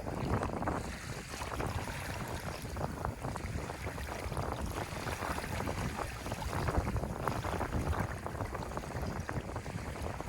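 Sea waves washing on a shore, a continuous rush of surf that swells and eases, with wind rumbling on the microphone.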